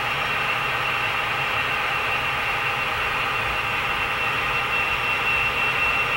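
HO-scale model train running on the layout: a steady mechanical hum with a thin, high whine that grows stronger near the end.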